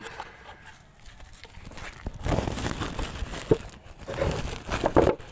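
Woven plastic sack being handled, rustling and crinkling from about two seconds in, with two sharp knocks in the second half.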